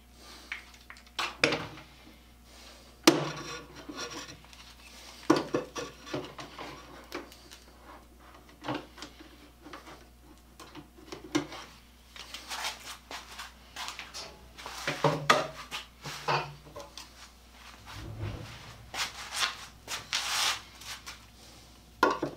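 Hand-tool work on wood: irregular knocks and clatter as tools, a clamp and boards are handled, with several short scraping, rubbing bursts of a tool working the wood.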